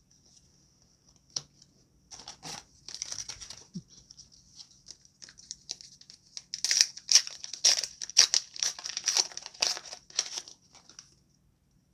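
Foil booster pack wrapper crinkling and tearing open in a flurry of sharp rustles, thickest and loudest in the second half.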